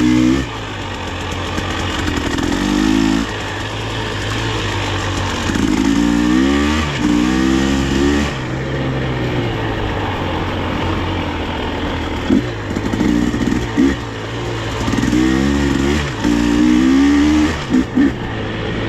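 Dirt bike engine being ridden, revving up and falling back again and again as it shifts through the gears, with a few brief sharp knocks in the second half.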